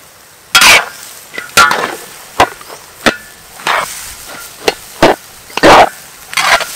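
A metal spatula scraping and clanking against a large steel wok as it tosses shredded cabbage and egg in a stir-fry. There are about ten irregular strokes, some short clanks and some longer scrapes along the pan.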